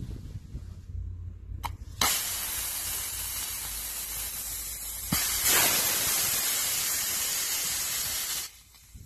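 Compressed air hissing hard out of the drain valve on the filter housing of a Bauer PE 100 TB breathing air compressor as it is blown down. The hiss starts suddenly about two seconds in, gets louder as the valve opens further about five seconds in, and cuts off sharply near the end.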